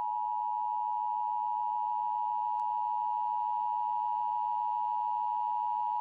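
Steady electronic alert tone at one pitch near 1 kHz, held unbroken at constant loudness: the tone that opens an emergency alert system broadcast.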